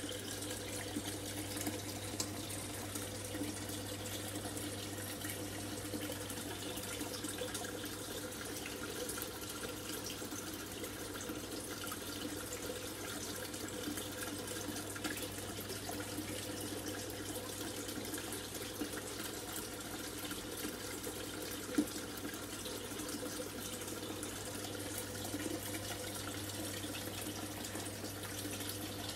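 Aquarium filter running: a steady trickle and splash of water falling back into the tank, over a low steady hum.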